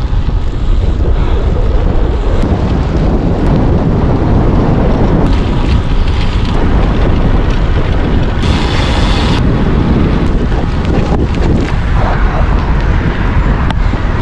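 Wind buffeting the microphone of a camera on a moving bicycle: a loud, steady rumble, with a brief brighter hiss about eight and a half seconds in.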